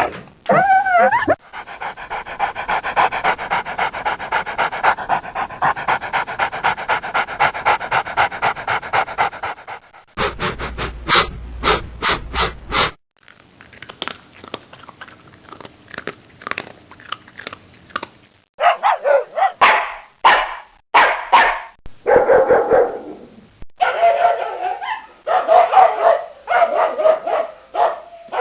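Dogs fighting and barking, in a run of separate recordings that cut into one another abruptly several times. For much of the first ten seconds there is a fast, even series of short sounds; separate loud barks and calls follow in the second half.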